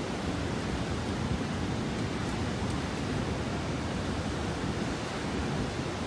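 Steady, even rush of typhoon wind over rough storm-surge water churning up a river, with no distinct events.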